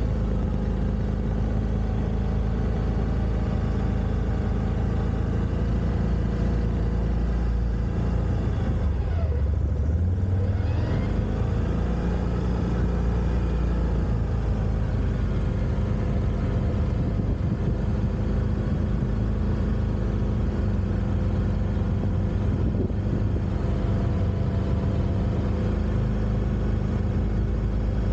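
Quad bike (ATV) engine running steadily while under way; its pitch drops about nine seconds in and climbs back up as it revs again.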